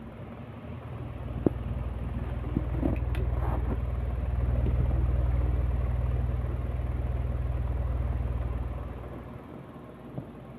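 Singer sewing machine running: a steady low-pitched rumble that builds up about a second in, holds for several seconds and dies away near the end, with a few sharp clicks in the first few seconds.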